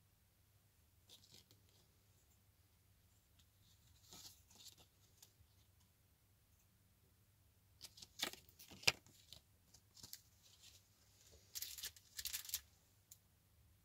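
Handling noise from a clear plastic packaging bag and a paper card: short, scattered crinkles and rustles, loudest about eight to nine seconds in and again around twelve seconds.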